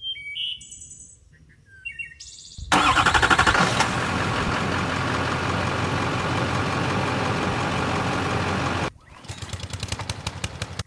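Truck engine sound effect: the engine starts suddenly a few seconds in, runs steadily, and cuts off abruptly near the end, followed by faint rapid clicking. Soft bird-like chirps come before it starts.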